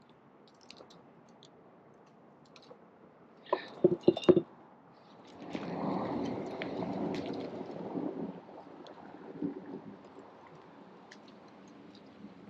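A quick cluster of sharp knocks about four seconds in, then rustling of ironwood branches and blossoms being pulled and stripped by hand close to the microphone, loudest for a few seconds before tapering off.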